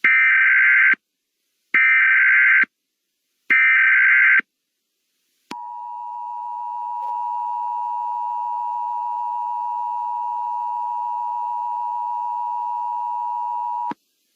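Emergency Alert System SAME header: three short bursts of data tones, each about a second long. After a short pause comes the EAS two-tone attention signal, a steady dual tone held about eight seconds that cuts off sharply, signalling the start of a civil danger warning.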